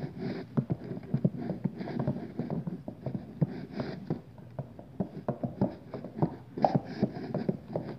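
Spoon stirring homemade glue slime as it thickens, clicking and tapping irregularly against the container.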